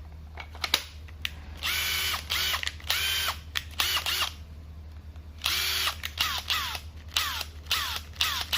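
Makita 18 V cordless impact wrench run free in short trigger pulls as a test after reassembly: four half-second bursts with the motor whine spinning up and cutting off, then a run of quick blips, each falling in pitch as the motor winds down.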